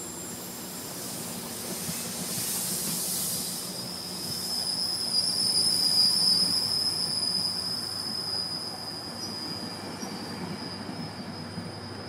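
GO Transit bilevel passenger coaches rolling past with a low rumble, their wheels giving a high, steady squeal that comes in about four seconds in, is loudest around six seconds, then eases.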